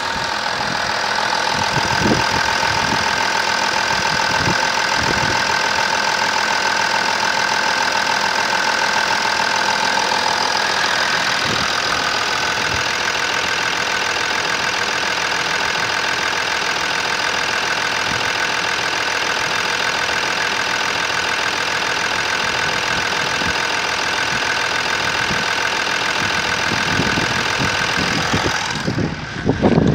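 Audi 3.0 V6 TDI turbodiesel engine idling steadily, with a steady whine above the engine note that shifts slightly in pitch about ten seconds in.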